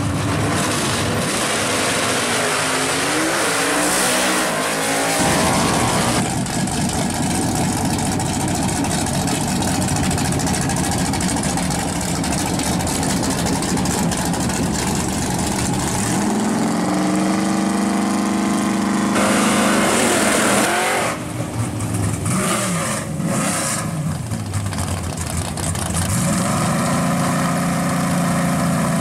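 Drag cars' engines at the starting line: revving with rising pitch and launching down the strip, then loud full-throttle running. The sound changes abruptly a few times as separate runs follow one another, and near the end an engine holds a steady idle note.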